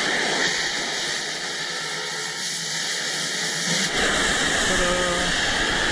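Cutting torch hissing steadily while cutting steel.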